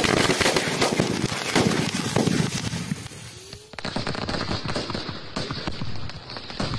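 A pit full of assorted Diwali firecrackers and black powder going off together: a dense, rapid string of bangs and crackling. It eases briefly about four seconds in, then the crackling and scattered bangs carry on.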